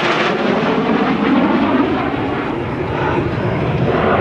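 A pair of US Navy F/A-18 Hornet jets, each with twin General Electric F404 turbofans, flying past with a loud, steady jet roar. The high hiss fades from about halfway through, leaving a duller rumble as the jets draw away.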